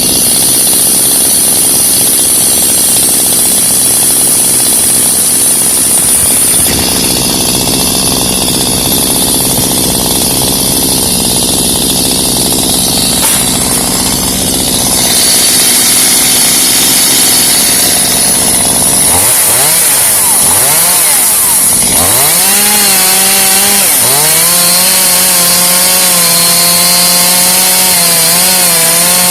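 Chainsaw running hard and cutting into pecan wood. About two-thirds of the way through, its pitch drops and recovers a few times as the chain bites, then holds a steady lower note under load.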